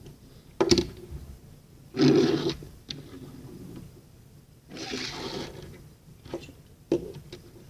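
Toy cars being handled and rummaged through: a sharp click about a second in, two longer rustling, scraping bursts, and a few lighter clicks near the end.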